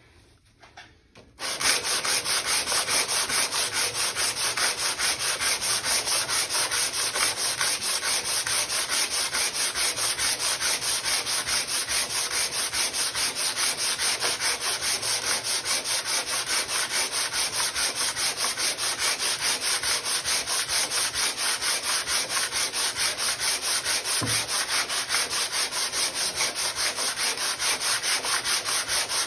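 Metal plane sole being lapped by hand on coarse 80-grit sandpaper laid on glass: a steady back-and-forth scraping rhythm that starts about a second and a half in. The sole of a No.33 hand plane is being ground flat.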